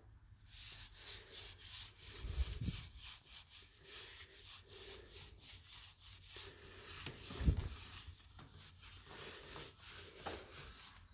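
A cloth rag rubbing back and forth along a bicycle frame tube in quick repeated strokes, spreading a liquid to loosen sticker glue. Two dull bumps come through, the louder one about seven seconds in.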